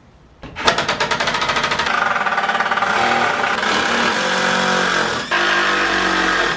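Cordless power driver driving screws into timber: it starts about half a second in with a fast hammering chatter, then runs steadily with its pitch shifting in steps. It stops briefly a little after five seconds in.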